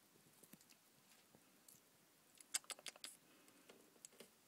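Mountain horned dragon chewing a pachnoda beetle grub: soft, wet clicks of its jaws, in a quick cluster about two and a half seconds in and a few more near the end.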